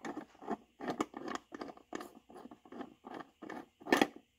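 Door striker bolt being spun out by hand with a T50 Torx bit: short, irregular scraping rasps of the threads and bit turning, about two or three a second, with one sharper click near the end.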